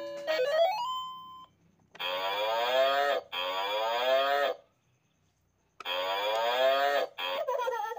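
Three long drawn-out calls, about a second each with a slight rise in pitch, separated by short gaps. Before them, near the start, a short rising run of musical notes.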